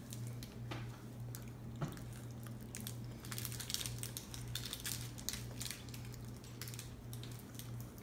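Faint crinkles, clicks and mouth noises of a melted chocolate bar in its wrapper being handled and bitten, busiest in the middle, over a steady low hum.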